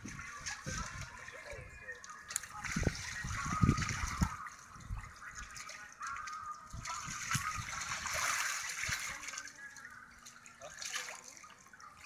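Shallow pool water sloshing and splashing as an inflatable water-walking ball rolls across it, with irregular low thumps mixed in.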